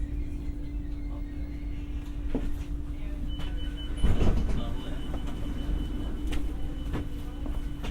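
Interior sound of an X60 (Alstom Coradia Nordic) electric multiple-unit commuter train: a steady low hum and drone with scattered clicks and knocks, one louder knock about four seconds in. A thin high tone comes in about three seconds in.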